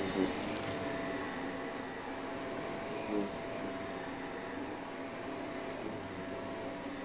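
Upright vacuum cleaner running steadily, a faint steady whine held through the motor and airflow noise as it is pushed across a rug.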